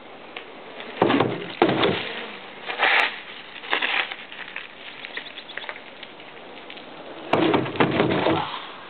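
Wheels rolling and knocking on a homemade wooden spine ramp during a spine transfer. There are two heavy thuds about a second in and lighter knocks a couple of seconds later. Near the end comes a longer loud rolling rumble across the plywood, with knocks.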